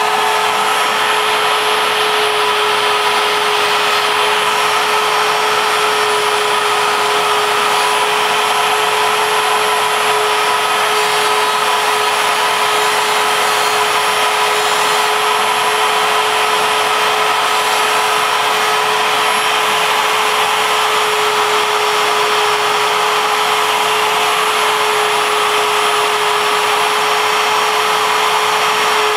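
Router spindle of a ShapeOko CNC mill running steadily with a constant whine, its bit cutting MDF. A vacuum hose drawing through the dust shoe adds a steady rushing noise.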